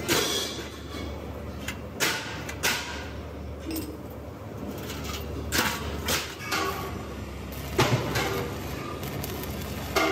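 Rolled steel cylinder shell clanking and knocking as it is handled, about eight irregular metallic hits, some ringing briefly, over a steady low workshop hum.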